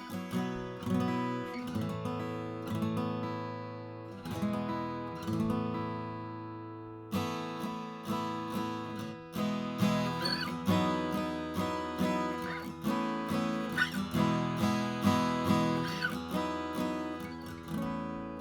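Collings C100 acoustic guitar, with a Sitka spruce top and mahogany back and sides, being strummed and ringing out. Partway through, one chord is left to ring and fade for about three seconds before busier strumming starts again.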